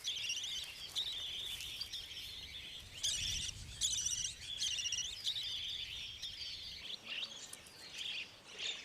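Budgerigars chirping and chattering in fast, continuous warbling trills, with stronger bursts a few seconds in that thin out near the end.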